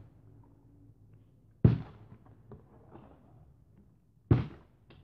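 Two dull thuds about two and a half seconds apart: a partly filled plastic water bottle landing on a carpeted floor after being flipped, neither time staying upright.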